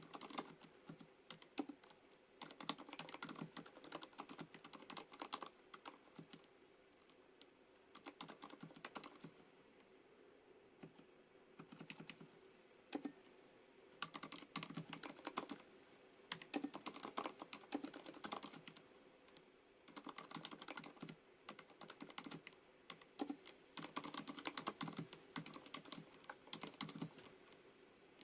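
Typing on a FILCO Majestouch MINILA-R Convertible compact mechanical keyboard with Cherry MX Silent switches: quiet, rapid keystrokes in runs of several seconds, broken by short pauses.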